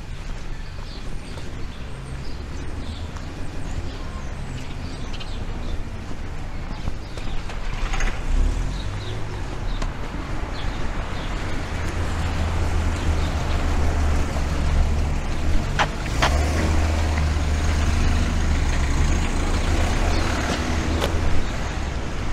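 Road traffic on a town street: a motor vehicle's engine and tyre rumble builds over several seconds in the second half as it passes. A couple of sharp clicks come about two-thirds of the way in.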